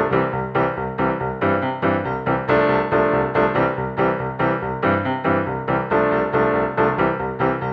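Background music: an upbeat electronic tune led by keyboard notes struck at a steady, quick beat.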